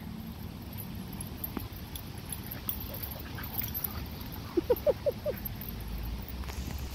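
Dog giving four quick, high, rising yips in a row about four and a half seconds in, the excited vocalising of dogs playing.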